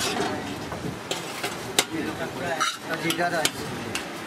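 Steel ladle scraping in a metal pot of cooked rice and clinking against the pot and a steel thali plate while rice is served, with several sharp metal clinks.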